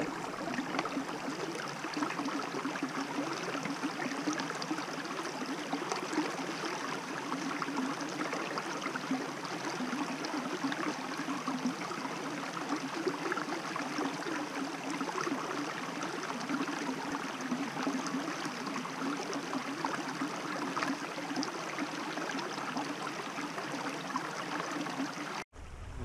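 Shallow rocky stream babbling steadily over small cascades and stones; it stops abruptly near the end.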